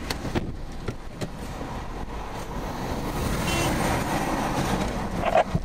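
Steady car cabin noise from the engine and road, with a few light knocks from the camera being handled. The noise swells slightly about three and a half seconds in.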